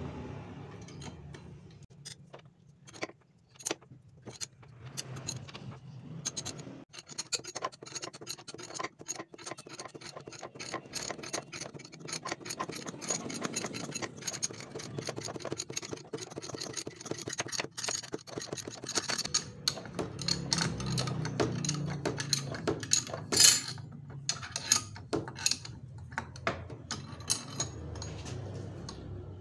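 Metal hand tools clicking and scraping as a stainless L-bolt hooked into a seized piston pin is turned slowly to work the pin out of a Yamaha Mio scooter's piston; the pin seized when the engine ran out of oil. The clicks are sparse at first, then come almost continuously, with one louder knock about two-thirds through.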